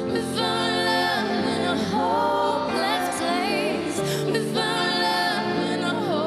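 Live pop performance: a female singer singing into a microphone over a band playing sustained chords and a steady bass, her voice wavering on held notes.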